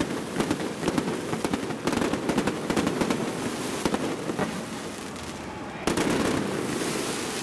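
Aerial fireworks bursting close overhead: a rapid, dense string of sharp cracks and crackles with little delay between flash and bang, echoing off surrounding buildings. It thins out briefly, then a louder burst comes in about six seconds in.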